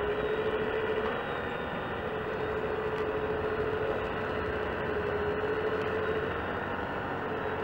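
Hydraulic pump of a Wedico 1:14.5 CAT 345D LME RC excavator running with a steady whine over a continuous mechanical hum as the boom and bucket move. The whine is stronger in the first second and again from about three to six seconds in.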